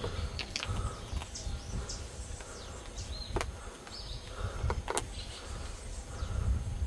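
Wind rumbling on the microphone of a handheld camera walking through dry scrub, with a few sharp clicks and faint short high chirps.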